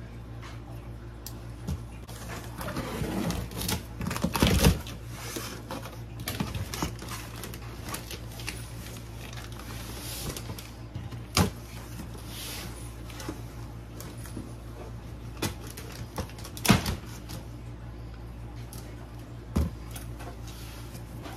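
Cardboard shipping box being opened and unpacked: scattered rustling of cardboard flaps and packing paper, with several sharp knocks and thumps, the loudest about four and a half and seventeen seconds in, over a steady low hum.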